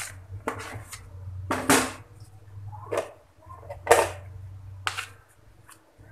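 A silicone spatula scraping the last cake batter out of a plastic mixing bowl: a series of short scrapes and knocks, the loudest near the middle, over a steady low hum.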